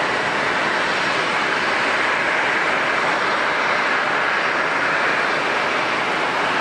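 Airliner jet engines running: a steady, even rushing noise with no distinct tone, swelling slightly in the middle.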